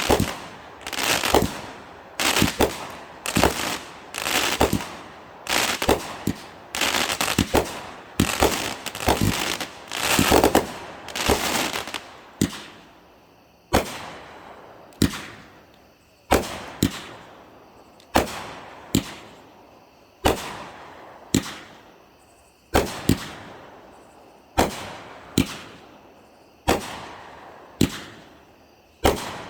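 Consumer fireworks going off in a long rapid series of sharp bangs. For about the first twelve seconds they come less than a second apart with crackling between them; after that they slow to roughly one bang a second, each trailing off.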